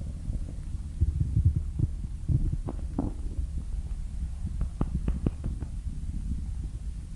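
A blue fox's stomach growling: a steady low rumble with irregular short gurgles and squelches, clustered about one, three and five seconds in.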